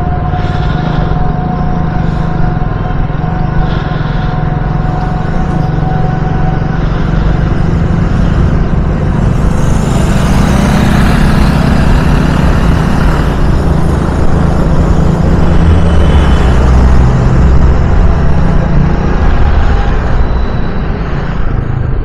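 Riding noise from a motor scooter on a city road: the scooter's engine and tyres give a steady low rumble, with wind buffeting the helmet-mounted microphone, gusting louder about ten to thirteen seconds in.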